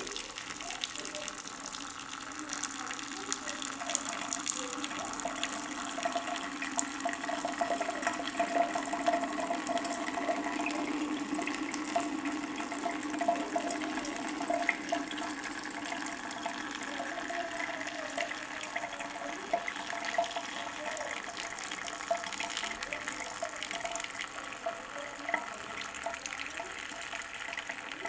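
Steady running and splashing of water: jets spouting from holes in the side of a water-filled plastic bottle and falling into a sink, with a tap running.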